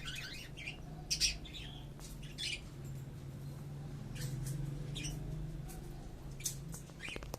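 Small pet parrots, a budgerigar and a lovebird, giving scattered short chirps and squawks, about nine over several seconds. A steady low hum runs underneath.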